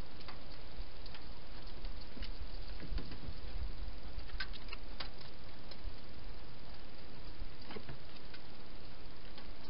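Wild hedgehog eating from a dish inside a plastic feeding box: scattered crunchy clicks and smacks of chewing over a steady hiss, with a soft low rumble about three seconds in.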